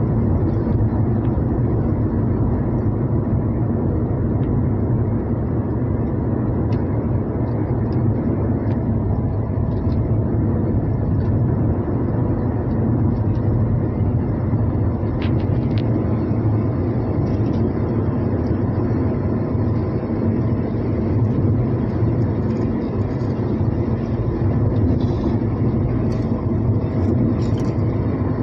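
Renault Triber on the move: a steady rumble of engine and tyre noise that holds even throughout.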